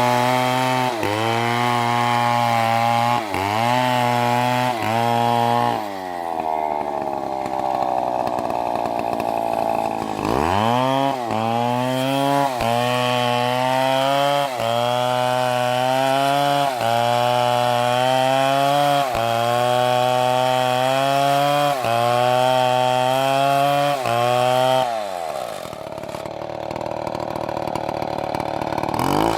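STIHL chainsaw at full throttle, its pitch dipping about once a second as it works, falling back toward idle around six seconds in. It revs up again about ten seconds in for a longer run with the same regular dips, then drops back to idle near the end.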